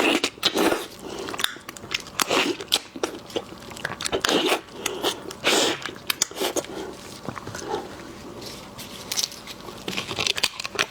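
Close-miked eating of seafood: irregular biting, crunching and chewing.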